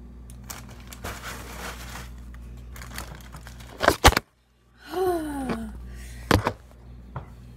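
A phone camera being knocked over and falling: a plastic bag rustles at first, then two loud knocks come close together about four seconds in with a brief dropout, a voice slides down in pitch, and another knock follows about two seconds later.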